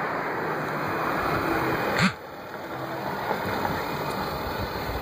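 Steady noise of road traffic, with a sharp knock about two seconds in, after which the noise drops quieter.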